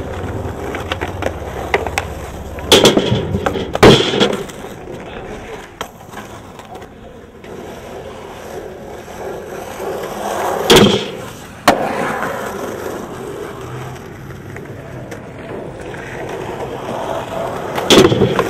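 Skateboard wheels rolling over asphalt, broken by five loud, sharp board clacks and landings: two about three and four seconds in, two around eleven seconds, and one near the end as a skater hits a wooden ramp.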